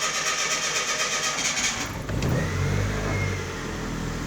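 Chevrolet Celta 1.0's starter cranking the engine, which catches about two seconds in, revs up briefly and settles into a steady idle.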